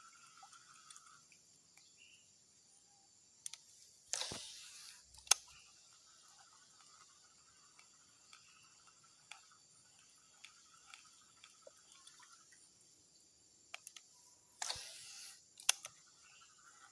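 Fishing rod and reel during casting: two short swishes, about 4 s and 15 s in, each followed about a second later by a sharp click. A faint steady insect drone runs underneath.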